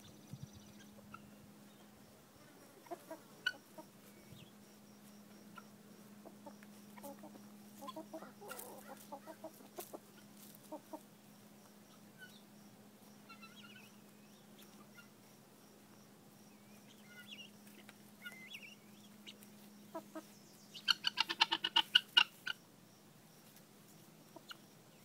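Helmeted guinea fowl feeding, with faint scattered clucks and pecking sounds, then a loud, rapid chatter of about a dozen harsh calls some three quarters of the way through.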